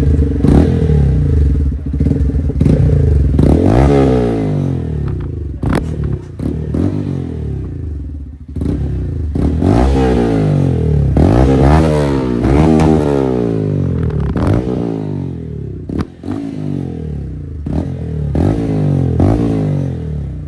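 Bajaj Pulsar N160's single-cylinder engine revved through aftermarket LeoVince silencers on a dual-side exhaust. Repeated quick revs rise and fall over the running engine, with a few sharp cracks between revs.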